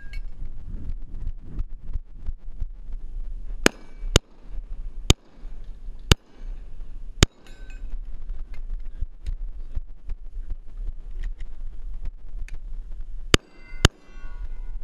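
Glock 19 9mm pistol shots, seven in all: five spaced about half a second to a second apart a few seconds in, then a pause of several seconds, then two quick shots near the end. Steel targets ring after some of the hits.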